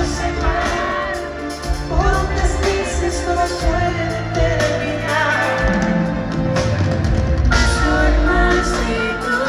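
Live bachata band music with sung vocals over steady bass and accompaniment, as played at a concert.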